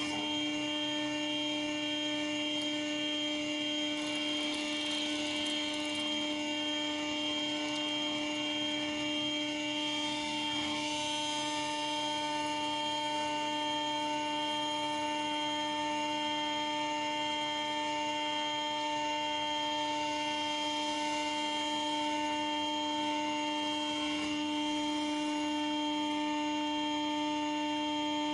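CNC router spindle running at steady speed with an even whine while a 6 mm PLEXITOP router bit mills through a 6 mm polycarbonate sheet in a single roughing pass, with a hiss of cutting noise over the whine.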